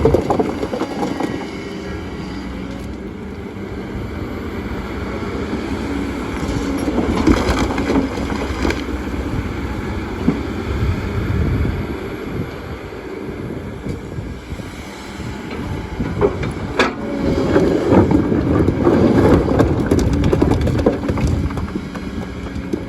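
Kobelco excavator's diesel engine running under load while its arm and bucket move stones, with a few sharp knocks and scrapes of stone against the bucket.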